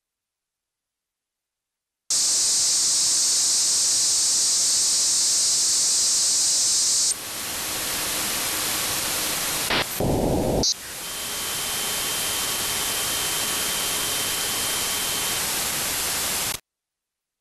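Software-defined radio receiver's audio output giving steady hiss and static from an L-band satellite band. It starts suddenly about two seconds in, changes character about seven seconds in, has a brief low burst about ten seconds in followed by a faint steady whistle, and cuts off suddenly near the end.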